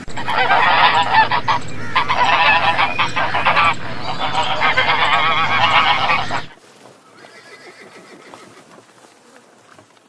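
A flock of domestic geese honking loudly, many calls overlapping, for about six and a half seconds. Then it cuts off suddenly, leaving much fainter sounds.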